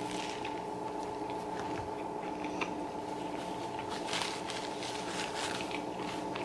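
Close-miked eating: the wet, crackly chewing of a bite of egg BLT bagel, with a burst of paper napkin rustling about four seconds in. A faint steady hum runs underneath.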